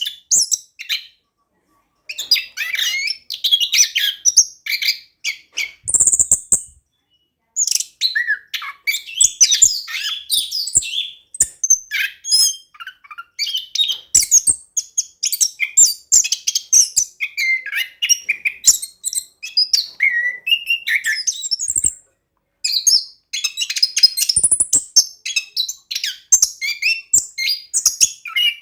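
Orange-headed thrush singing a long, fast, varied song of rapid chirps, trills and rolling phrases, broken by a few short pauses.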